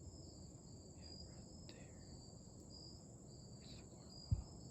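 Crickets chirping: a steady high trill with a shorter chirp repeating about twice a second. A single dull low thump sounds about four seconds in.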